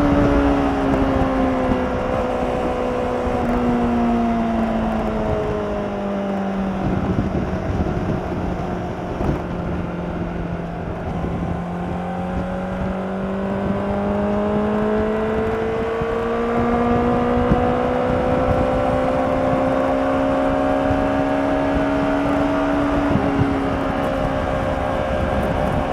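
2016 Honda CBR600RR's inline-four engine running through its stock exhaust while riding. The revs drop over the first several seconds, hold low for a while, then build slowly and steadily, easing off slightly near the end.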